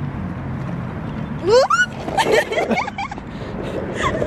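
Longboard wheels rolling over rough, cracked asphalt with a steady low rumble. About a second and a half in, a voice lets out a loud rising yelp, then laughter.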